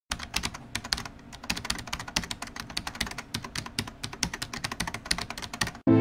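Rapid typing on a computer keyboard: a fast, uneven run of key clicks that stops abruptly near the end.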